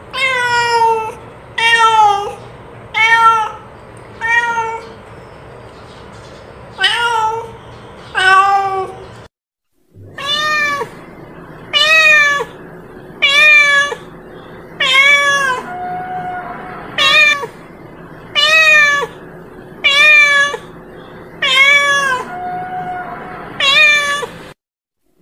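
Domestic cat meowing over and over: about sixteen short meows, each rising then falling in pitch, roughly one every second and a half, with a brief break about nine seconds in.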